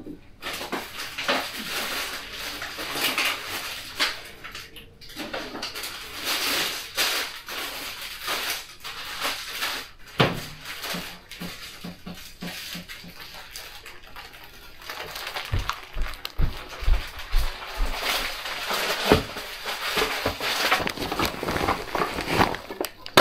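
Groceries being unpacked and put away: packaging and shopping bags rustling, with items knocking and clattering as they are set down. A run of low thuds comes about two-thirds of the way through.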